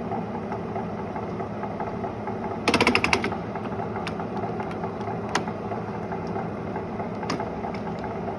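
Clausing 20-inch variable-speed drill press running steadily. A brief rapid clatter comes about three seconds in, and a few single sharp clicks follow.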